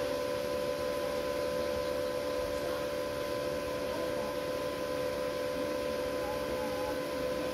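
MMA-130 inverter welding machine switched on and idling, its cooling fan and electronics giving a steady hiss with a steady whine.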